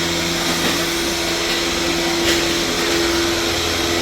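Steady rushing whir and hum of running dairy machinery in the milk-tank area, with one steady mid-pitched tone over the rush.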